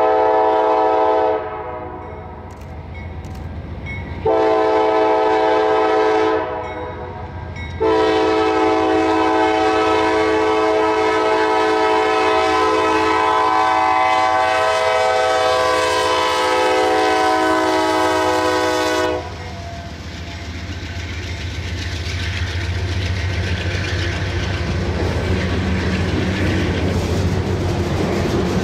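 A Norfolk Southern diesel locomotive sounds its multi-chime air horn for a grade crossing. One blast cuts off about a second in, a second lasts about two seconds, and a third is held about eleven seconds as the locomotive goes by. After that comes the steady rumble and clatter of autorack freight cars rolling past.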